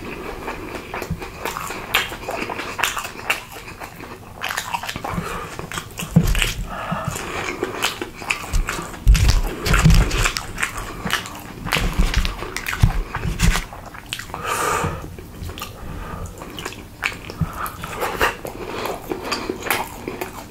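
Close-miked chewing and biting of food: a dense run of crisp clicks and crunches with soft low thumps, busiest in the middle stretch.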